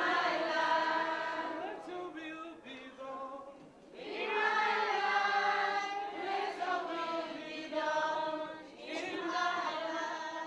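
A choir singing in long held phrases, with short breaks between phrases about four seconds in and again near the end.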